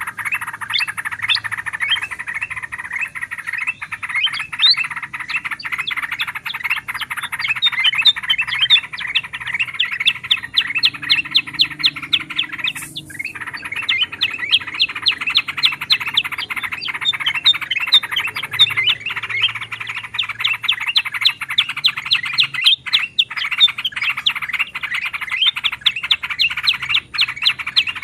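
Several bulbuls chattering together in a dense, continuous stream of quick overlapping chirps, with brief breaks about 13 and 23 seconds in. It is a lure recording (suara pikat) mixing yellow-vented bulbul (trucukan) with kutilang emas and kutilang sutra bulbuls, meant to draw wild birds in.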